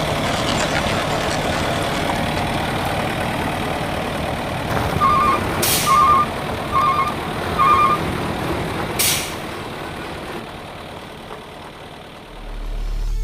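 Heavy truck's engine running steadily, with four short reversing beeps about 5 seconds in and two short hisses of air brakes. The engine fades away near the end.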